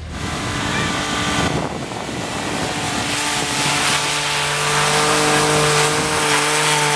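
Hyundai Galloper SUV driving through deep snow, its engine pulling steadily under load, over a loud rushing hiss of snow spraying off the tyres and body.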